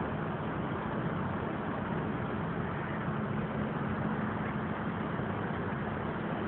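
A steady low mechanical hum under an even hiss, running unbroken with no change.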